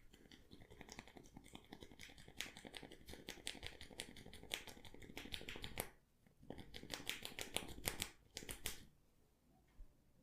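Hair cracking during a head massage: tufts of hair gripped and tugged against the scalp give a dense, rapid crackling. It comes in two runs, with a brief break about six seconds in, and stops about nine seconds in.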